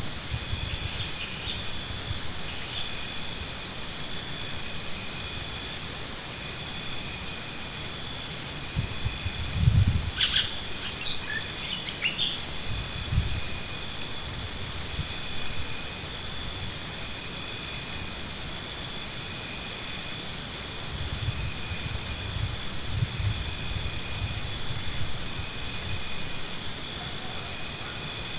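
Insects chirping in pulsed trills a few seconds long that repeat over and over, with a steady high whine beneath and a few low rumbles now and then.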